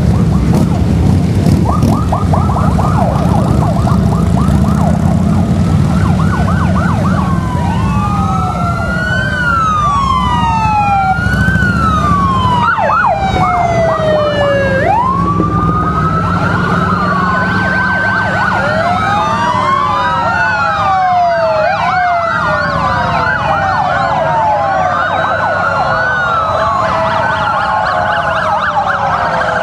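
Several emergency vehicle sirens sounding at once: a fast yelp in the first few seconds, then many overlapping wails rising and falling, over the steady low rumble of a passing column of motorcycles.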